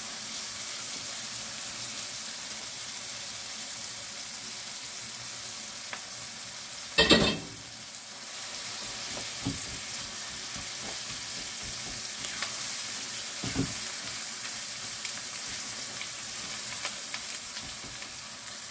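Boiled chopped spinach frying in onion-tomato masala in a non-stick frying pan: a steady sizzle with the scrape of a spatula stirring it. A brief loud clatter comes about seven seconds in.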